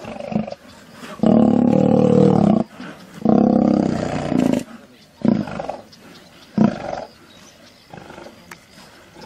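Lions growling in a fight: two long, loud growls about a second and three seconds in, then two short grunts.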